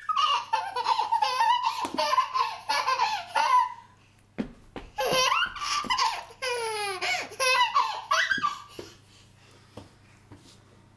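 Baby laughing in high-pitched belly laughs and giggles: two stretches of a few seconds each with a short break between, then falling quiet near the end.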